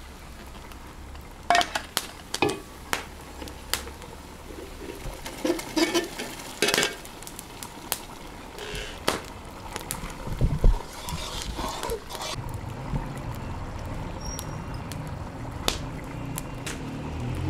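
Steel cooking utensils clinking and knocking as a perforated skimmer ladle scoops soaked grains from a steel pot and the pot is tipped into a karahi of broth. Scattered sharp clinks, with one heavier knock about ten seconds in.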